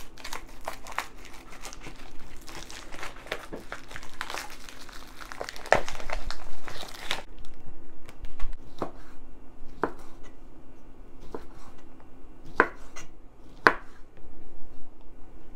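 Vacuum-sealed plastic sausage packaging crinkling and crackling as it is cut open with scissors and pulled off the kielbasa, for about seven seconds. Then a handful of separate sharp knocks of a knife cutting down onto a wooden cutting board.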